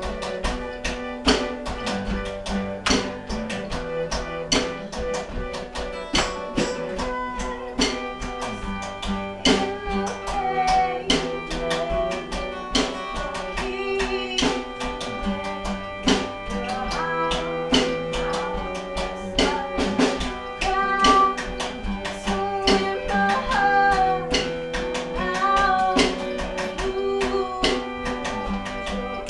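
Live band playing: an acoustic guitar strummed over a drum kit keeping a steady beat, with singing coming in about nine seconds in.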